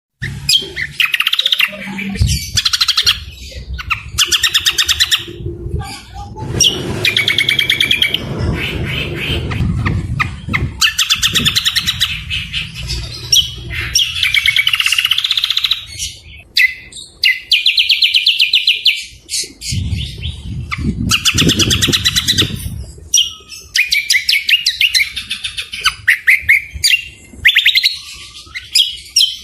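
Greater green leafbird (cucak kombo) and other songbirds singing: loud bursts of very fast, rattling trills and chattering phrases, one every second or two.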